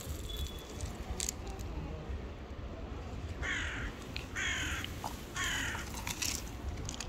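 A crow cawing three times, about a second apart, over a low steady background rumble.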